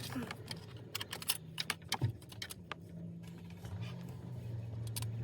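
Scattered light clicks and taps, with a faint low hum beneath, from hands fitting plastic connectors and trim while installing a car stereo.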